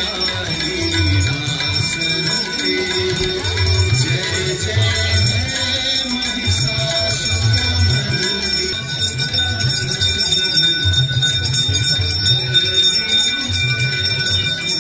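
Hindu aarti music with a steady low drumbeat, over continuous ringing of brass hand bells.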